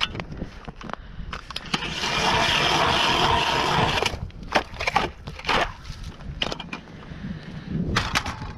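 Hand-cranked ice auger cutting through lake ice: a steady scraping grind lasting a couple of seconds, then several sharp knocks and clunks on the ice.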